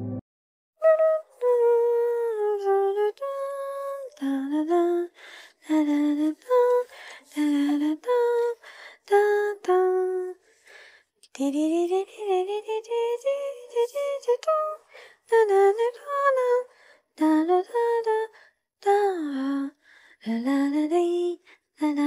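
A woman humming a slow, wavering melody unaccompanied, in short phrases with brief pauses between them, starting about a second in.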